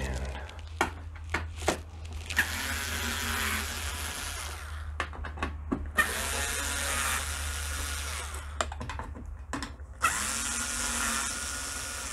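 Small cordless screwdriver running in three bursts of a couple of seconds each, backing out the Torx T15 screws that hold a dishwasher's door panel. Each burst starts with a click, and there are light clicks and taps between them.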